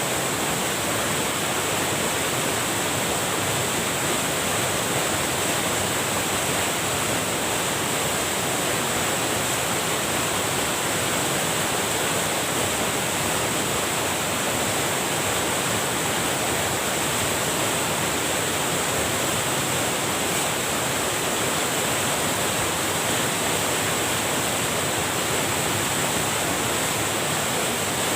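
Water rushing steadily over a small waterfall, with the flow swollen after heavy rain.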